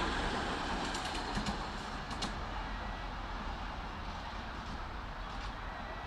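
Ride-on miniature railway train running along its raised track, a steady rumble of wheels on rails that fades as it moves away, with a few clicks about one to two seconds in.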